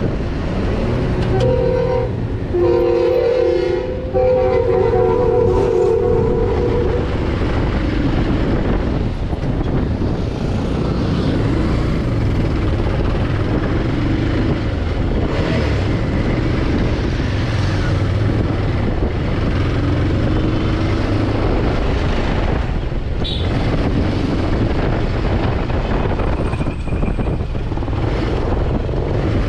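Motorcycle engine running with wind and road noise while riding slowly through congested traffic. For the first several seconds a vehicle horn sounds loudly in long blasts, several pitches at once, dropping lower partway through.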